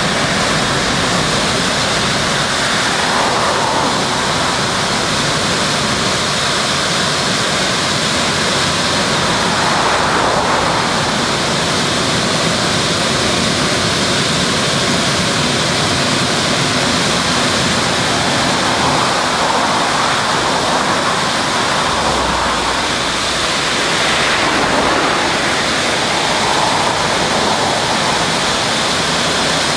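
Aquarama Stargate S111 rollover car wash running over a car, a loud, steady rushing noise that swells gently now and then as the gantry travels along the car.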